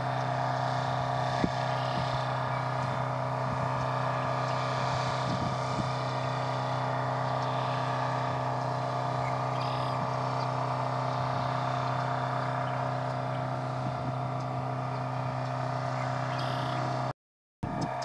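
Steady engine drone, holding one unchanging pitch throughout.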